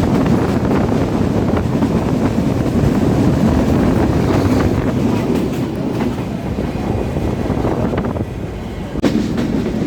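Benapole Express passenger train running on the rails with a steady rumble and rattle. It grows somewhat quieter in the last few seconds as the train slows on arrival at a station.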